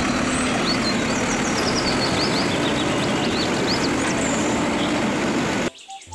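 Automated side-loader garbage truck's engine running steadily while its hydraulic arm lifts a wheeled trash cart and tips it into the hopper. The sound cuts off suddenly near the end.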